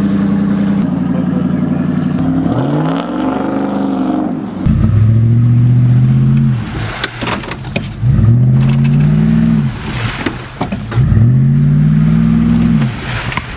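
Dodge Ram pickup's engine running, then revved hard four times, each rev climbing quickly, held for a second or two and dropping off: the truck getting stuck in swamp mud. Short sharp knocks come between the later revs.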